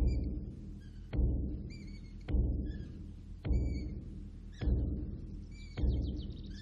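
Slow, steady low drum beats in a film score, about one a second, each booming and dying away before the next, with birds chirping over them.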